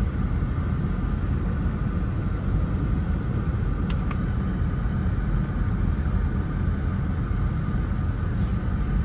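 Long freight train rolling past a grade crossing: a steady low rumble of steel wheels on rail, heard from inside a stopped car.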